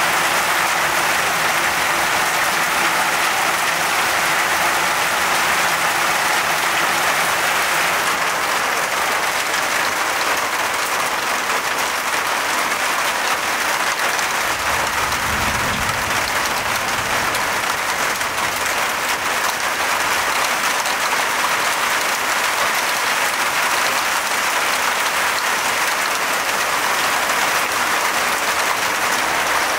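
Heavy downpour, the steady hiss of rain pouring down. A brief low rumble sounds about halfway through.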